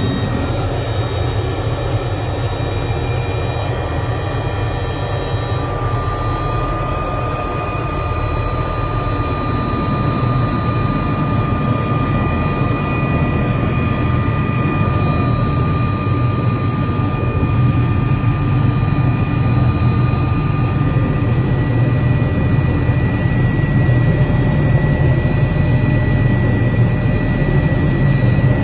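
Helicopter engine and rotor running, heard from inside the cabin: a steady whine of several high tones over a dense low rotor rumble, growing gradually louder in the second half.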